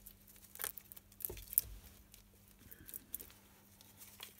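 Brush dabbing and smearing thick two-part mould silicone over a model: soft, irregular wet scratches and sticky clicks, a little louder about a second and a half in.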